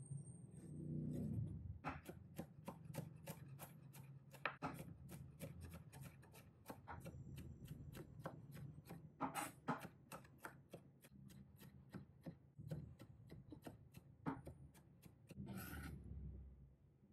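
Chef's knife mincing garlic on an end-grain wooden cutting board: a long run of quick, even chopping strokes, about three a second. Near the end comes a short scrape as the minced garlic is pushed together on the board.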